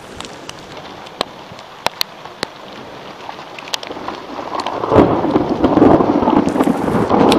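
Rain falling during a thunderstorm, with drops ticking sharply close by, then a loud clap of thunder about five seconds in that rumbles on.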